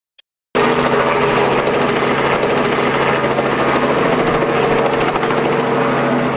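Engine of a motorized outrigger boat running steadily under way, with the rush of water and spray along the hull; it starts abruptly about half a second in.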